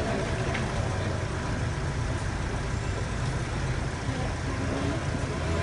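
Street traffic noise with the steady low hum of idling vehicle engines.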